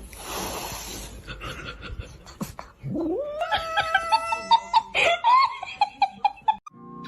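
A cat caterwauling: after a short hissing noise and a few clicks, a long drawn-out yowl rises in pitch about three seconds in, then wavers and pulses until shortly before the end.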